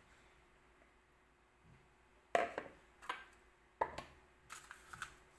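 Kitchen utensil clatter: after a quiet couple of seconds, several sharp knocks and clinks of a spatula against mixing bowls and a plastic bowl being put down on the counter.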